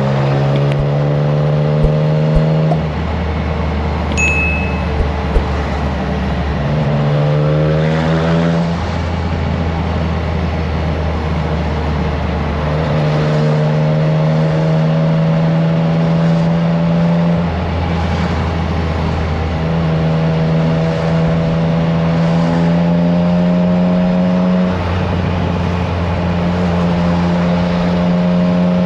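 Triumph Trident 660's inline three-cylinder engine through a FireTong aftermarket exhaust, running steadily. Its note switches back and forth between a higher and a lower steady pitch as the throttle changes, with a rising rev about seven seconds in.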